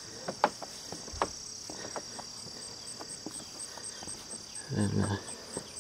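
Crickets singing in a steady high chorus, with a faint chirp repeating about three times a second. Scattered footsteps knock on the wooden plank footbridge.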